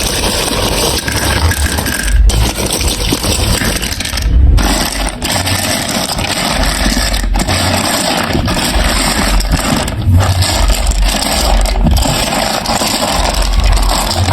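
Many marbles rolling and rattling along plastic marble-run block tracks in a continuous clatter, with low thuds every second or two.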